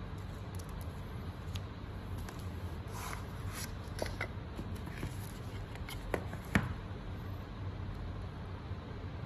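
Unboxing handling noise: a paper manual, cardboard box and charging cable being handled, with light rustles and clicks and one sharper knock about six and a half seconds in. A steady low hum runs underneath.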